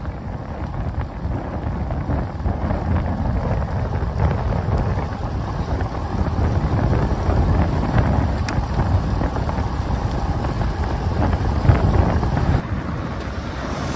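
Wind rushing over a moving microphone: a steady, low, buffeting rumble of air noise.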